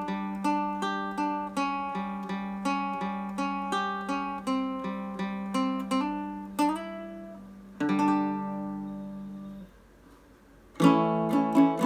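Ortega RU5-BA baritone ukulele picked in a steady run of single notes over a ringing low note, about three notes a second. Near the middle a last note rings out and fades, then stops abruptly. After about a second of near silence, louder playing starts again near the end.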